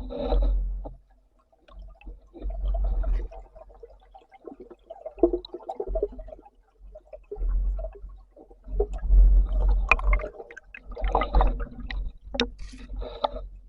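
Muffled water noise around a diving camera: irregular sloshing and gurgling surges, each about a second long, with a few sharp clicks near the end.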